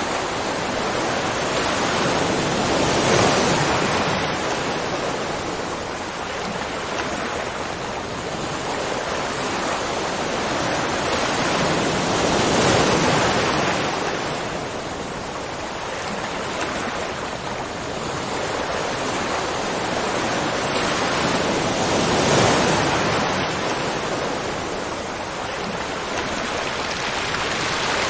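Continuous rushing water that swells and eases about every nine to ten seconds.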